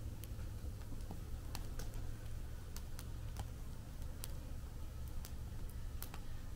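Wood fire in a fire pit crackling: sharp, irregular pops, about one or two a second, over a steady low rumble.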